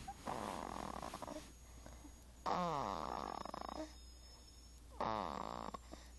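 Snoring: three rasping snores about two and a half seconds apart, each lasting over a second and opening with a falling tone.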